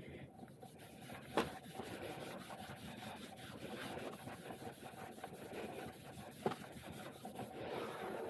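Rubbing and rustling of gloved hands handling items, with two light sharp knocks, about one and a half seconds and six and a half seconds in.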